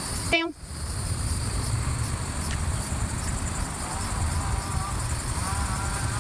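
Outdoor ambience: wind rumbling on the microphone under a steady high insect drone. A brief pitched tone sounds near the start, and faint wavering calls come in during the last two seconds.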